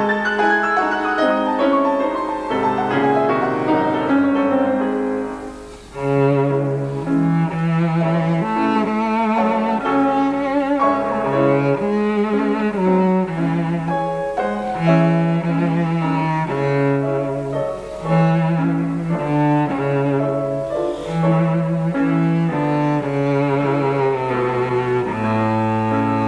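Classical music: a cello playing slow, held notes with vibrato over piano accompaniment, with a brief pause about six seconds in.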